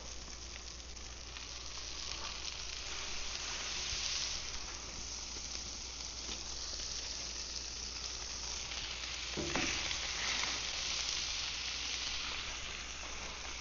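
Buttered fish fillets sizzling and searing on a hot grill as the grouper goes on beside the tuna, a steady hiss that swells slightly a few seconds in. A short knock, like a spatula touching the grill, about two-thirds of the way through.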